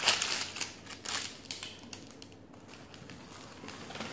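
Crackling and rustling of a crisp baked puff-pastry sheet and its parchment paper as a spatula is worked underneath to free it. A quick run of small dry crackles in the first second and a half, fainter and sparser after.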